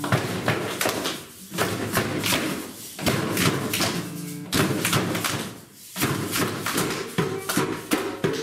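A group of children clapping and patting their hands together in a rhythm, many strikes at once. The rhythm drops out briefly about a second in and again near six seconds before starting again.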